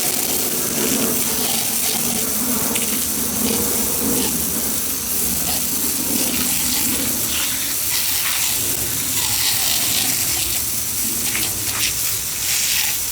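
Water spraying steadily onto a sump pump to wash it out; the pump is clogged with debris.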